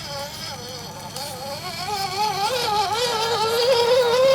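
Electric motor and gearbox of an RC crawler whining, its pitch wavering up and down with throttle and load, growing louder over the last two seconds.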